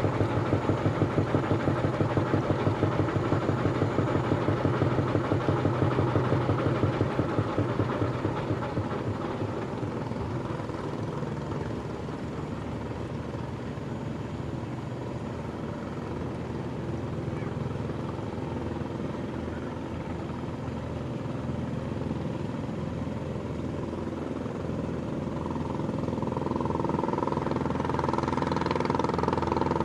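A large engine running with a fast, even low beat, louder in the first several seconds and then easing off. Near the end a steady high tone joins it.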